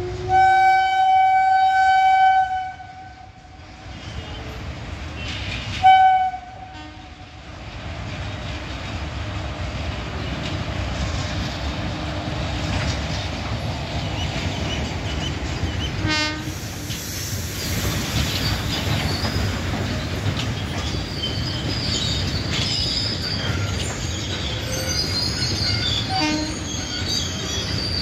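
A train horn sounds one long blast of about two and a half seconds, then a short blast about six seconds in. A freight train of flat wagons then rolls past with a steady rumble of wheels on rail, and high-pitched wheel squeal joins in from about twenty seconds on.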